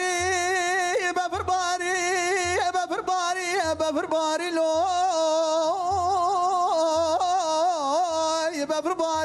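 A man singing in the Kurdish dengbêj style: one long, ornamented line held on sustained notes with a wide, wavering vibrato and quick turns. Under it, a low beat sounds about once a second.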